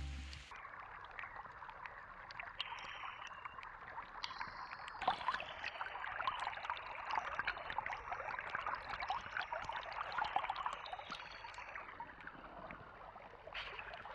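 Steady rush of water peppered with many small drips and patters, swelling through the middle and easing off near the end.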